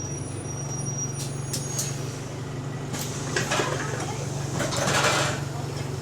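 Bus engine running with a steady low drone, on a bus with an exhaust leak. Two short bursts of hiss cut across it, about three seconds in and, louder, about five seconds in.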